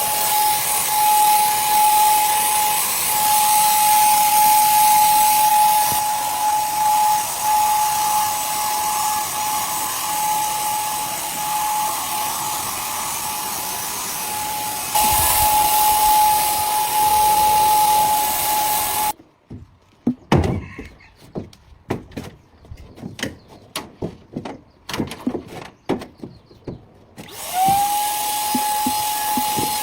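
Electric power tool motor running with a steady high whine and hiss. It stops about 19 seconds in, leaving scattered clicks and knocks of handling, then spins back up with a rising whine near the end.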